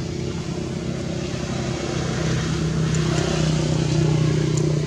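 A motorbike engine passing on the road, a steady hum that grows louder over the first four seconds and eases off at the very end.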